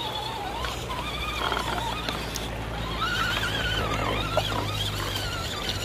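Electric motor and drivetrain of an RC crawler whining, the pitch wavering up and down as the throttle and load change.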